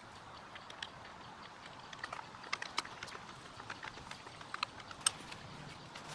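Faint, scattered clicks and light taps of small scooter parts and hardware being handled during assembly, over a low steady background hiss.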